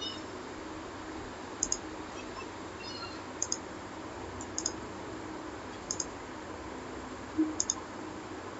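Computer mouse clicking: about five short clicks a second or so apart, most of them a quick double tick, over a faint steady hiss.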